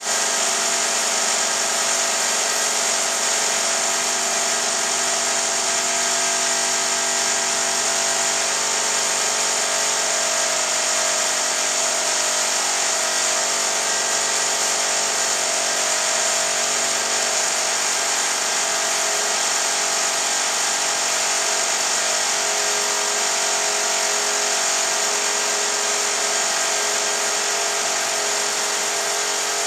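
Impact drill boring into a building's exterior wall, running loudly and without a break with a steady high-pitched whine.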